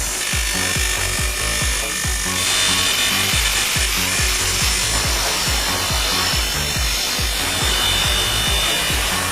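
Power machine cutting into aluminium: a dense grinding hiss, with a high steady whine coming in about two seconds in. Background music with a pulsing bass beat plays underneath.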